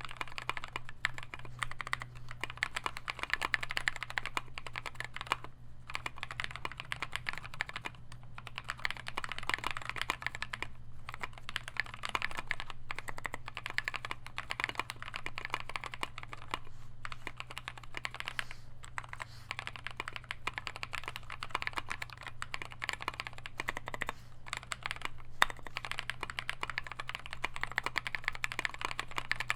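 Mechanical keyboard with NovelKeys Cream linear switches, lubed with Krytox 205G2, on a brass plate in an aluminium YMDK96 case, with Holee- and band-aid-modded NK stabilizers, being typed on continuously. It is a fast, steady run of keystroke clacks that breaks off for a moment every few seconds.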